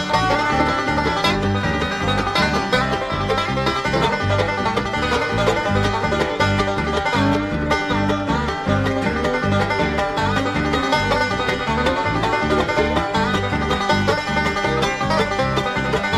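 Instrumental bluegrass music: a banjo picking the lead over a steady, even bass beat.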